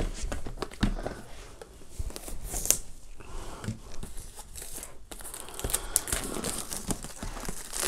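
Cardboard product box being handled and opened by hand: scattered taps, scrapes and rustling, turning into a denser stretch of crinkling for the last couple of seconds.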